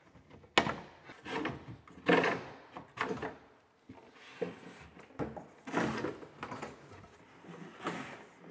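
Wooden sink base cabinet bumping and scraping as it is worked down over the plumbing pipes into place. It makes an irregular series of knocks, with a sharp knock about half a second in.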